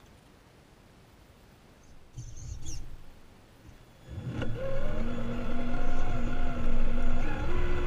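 Traxxas Summit RC truck driving. Starting about four seconds in, its electric motor and gears whine, stepping up and down in pitch with the throttle, over a rumble of the tyres on paving slabs. About two seconds in there is a short rumble with a brief squeal.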